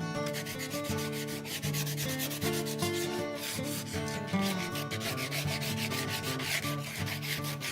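Wood being hand-sanded: quick, rhythmic rasping strokes, several a second, over acoustic guitar background music.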